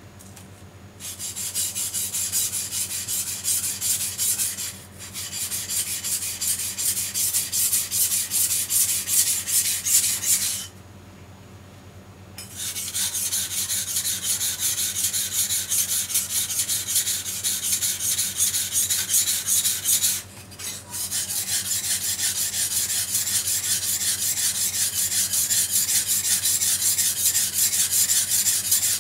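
Sashimi knife being stroked rapidly back and forth on a water-soaked whetstone, a rhythmic steel-on-stone scraping, sharpening its single bevel. It stops for about two seconds near the middle and breaks off briefly twice more.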